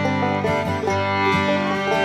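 Background music: an upbeat bluegrass-style tune of plucked strings with fiddle.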